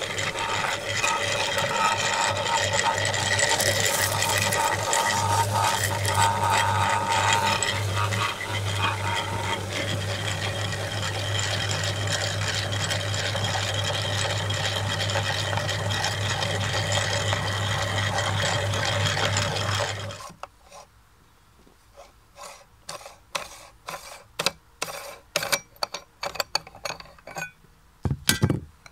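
Meat grinder running steadily with a constant hum while it grinds wafer cookies and pushes out strands, then switching off abruptly about two-thirds of the way in. A series of sharp metallic clicks and knocks follows as the grinder head is handled.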